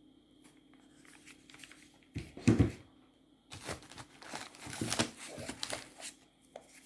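Fireworks and packaging being handled as they are unpacked from a cardboard selection box: a knock about two and a half seconds in, then a couple of seconds of crinkling and rustling.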